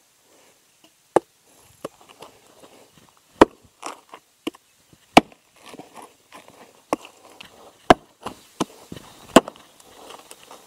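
Axe chopping into a wooden log: a string of sharp strikes at irregular spacing, roughly one a second, with quieter knocks between them. He is cutting the log for a Swedish fire torch.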